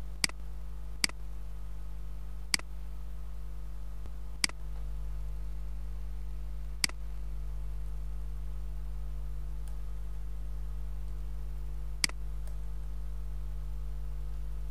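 Computer mouse clicks, six sharp ones at irregular intervals, over a steady low electrical hum.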